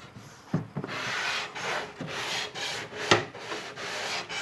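Sandpaper rubbed back and forth over wood by hand, starting about half a second in, at about two strokes a second. A single sharp click about three seconds in.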